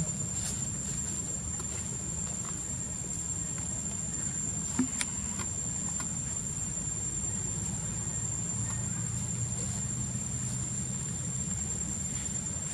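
Insects droning at one steady high pitch, over a low steady rumble, with a single small tap about five seconds in.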